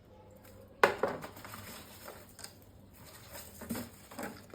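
Okra pods being dropped by hand into a bowl for washing: a sharp knock just under a second in, then scattered lighter knocks and rattles.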